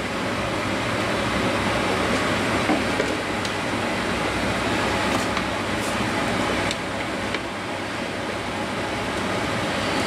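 Steady rushing kitchen noise, with a few faint clicks and scrapes of a spatula scraping thick sauce out of a plastic measuring jug into a pot.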